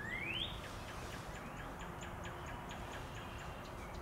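Birdsong in the background: a rising whistle at the start, then a quick series of faint high chips, about four a second.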